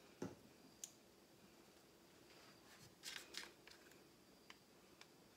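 Near silence, broken by a few faint clicks and a brief scraping rustle about three seconds in, from small tools and paint cups being handled.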